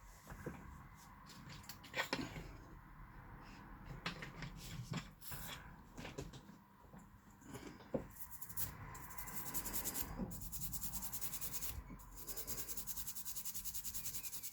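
A toothbrush scrubbing a circuit board in quick back-and-forth strokes, working a spot of rust or dirt off the board. Before the scrubbing settles into its steady rhythm about halfway through, there are a few handling clicks and knocks.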